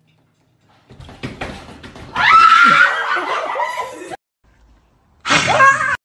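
A person screams suddenly and loudly about two seconds in, then laughs. A second short burst of shrieking laughter comes near the end.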